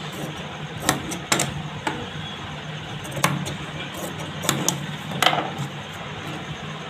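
Large tailor's scissors cutting cloth, about seven sharp clicks at irregular intervals as the blades snap shut. A steady low hum runs underneath.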